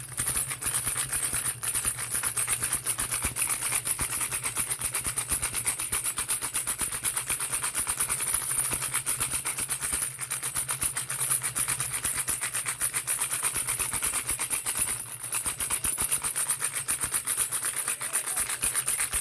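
Baby rattle shaken rapidly and without stopping: a dense, fast clatter of rattling pieces over a steady low hum, broken briefly twice.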